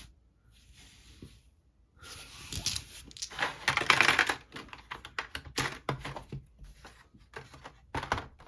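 Board game components being handled. After about two quiet seconds there is a rustle, then a run of light clicks and taps from dice and plastic game-tray pieces.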